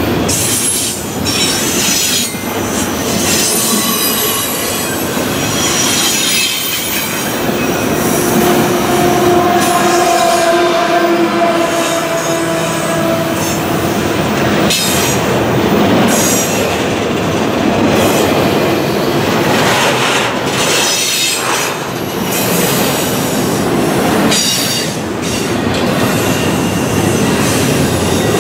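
Double-stack intermodal container train rolling past at close range: a steady rumble and clatter of steel wheels on rail, laced with high-pitched wheel squeal. In the middle, a lower squealing tone holds for several seconds.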